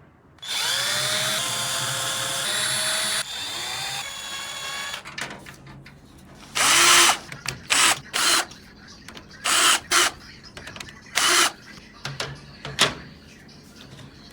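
Electric screwdriver driving screws. First a run of about three seconds whose pitch rises as the motor spins up, then a quieter run, then about seven short bursts.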